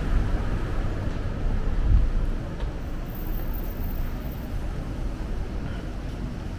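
Strong wind buffeting the microphone as a low, fluctuating rumble, with a gust swelling about two seconds in, over the hiss of a city street.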